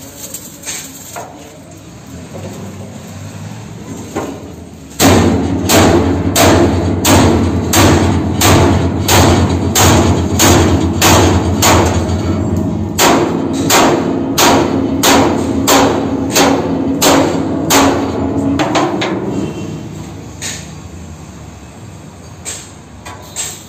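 A hammer striking steel, about two blows a second, the struck metal ringing on between blows. It starts abruptly about five seconds in, breaks off briefly midway, and fades out a few seconds before the end.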